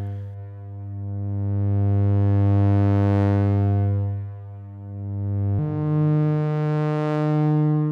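Make Noise modular synthesizer playing a sustained sawtooth drone through a low-pass gate that a slow Maths cycle opens and closes, so the tone swells brighter and fades twice. A step sequence from the René's Cartesian CV moves it up to a higher note about five and a half seconds in.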